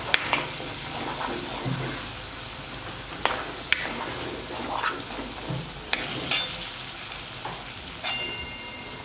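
Tomato and spice masala sizzling in oil in a kadhai as it is sautéed for a dal tadka, stirred with a metal spatula that scrapes and clicks against the pan about half a dozen times.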